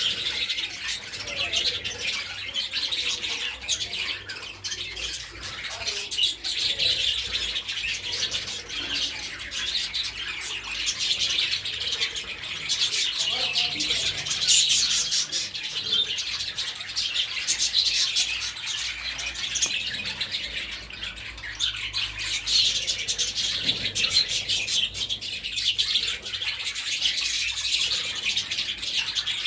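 A flock of budgerigars chattering and chirping continuously, many birds calling over one another in a dense, unbroken twitter.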